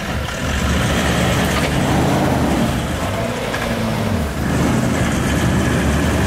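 Toyota LandCruiser's engine revving under load, held high with a brief dip about four seconds in, as it pulls a bogged vehicle on a recovery strap with the clutch slipping.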